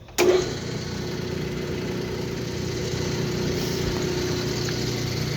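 Metal lathe's electric motor switched on with a sudden start, then running steadily with a hum.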